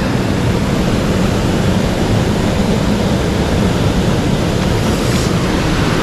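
Mountain stream water rushing steadily: a constant, even hiss of fast current.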